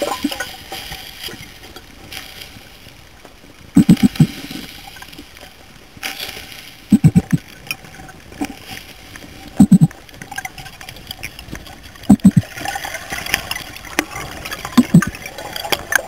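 Underwater: a diver's exhaled breath bubbling out of a scuba regulator in short, loud bursts about every two to three seconds, with quieter hissing between.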